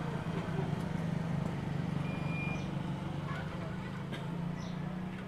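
A vehicle engine idling with a steady low hum, and faint outdoor background noise. A brief high tone sounds about two seconds in.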